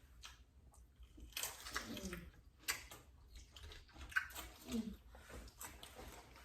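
Quiet room with two short, soft vocal murmurs, one about two seconds in and another near five seconds, and a few faint clicks between them.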